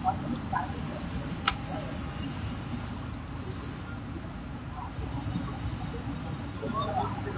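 Insect trilling in three high, steady bursts of about a second each, over a low background rumble, with a single sharp click about a second and a half in.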